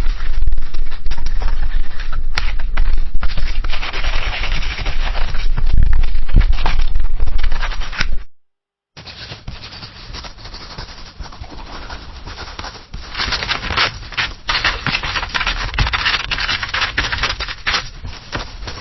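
Pencil writing on paper: graphite scratching in quick, irregular strokes with a low knock of the pencil against the desk. It drops out for under a second about eight seconds in, then a second, quieter take of pencil writing starts and grows louder a few seconds later.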